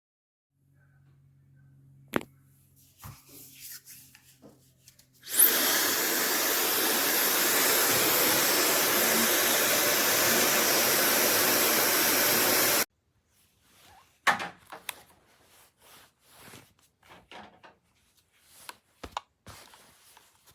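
Cosy Companions ZCY883 high-speed brushless hair dryer switched on about five seconds in: a quick rising whine as the motor spins up, then a steady rush of air for about seven seconds before it cuts off suddenly. Scattered clicks and handling knocks before and after.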